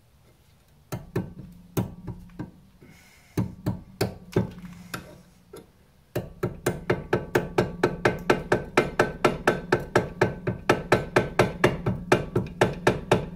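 Hammer blows on a chisel cutting through the old rear axle bushing's outer metal collar in a Chevy Aveo trailing-arm bore, each strike ringing metallically. A few scattered blows, then from about six seconds in a steady run of about four blows a second.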